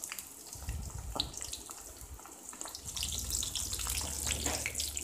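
Potato sticks deep-frying in hot oil in a steel kadai: a steady sizzle and crackle of bubbling oil that grows louder about three seconds in. This is the second fry of frozen, par-fried chips, cooking them until brown and crisp.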